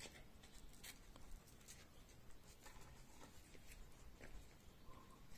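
Near silence: faint outdoor room tone with a few soft scattered clicks and rustles.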